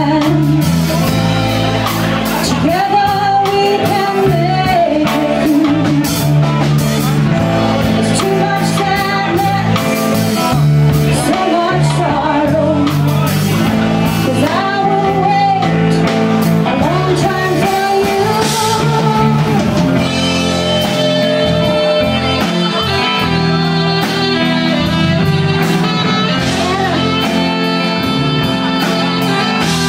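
Live blues band: a woman singing over electric guitar and drums. About two-thirds through the singing stops and the electric guitar carries on alone over the band, as in a guitar break.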